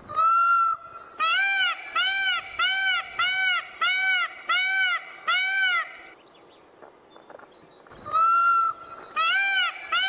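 Indian peacock calling: one long, loud call, then a fast series of short honking calls that rise and fall in pitch, about two a second, for some five seconds. After a pause of about two seconds the same pattern starts again.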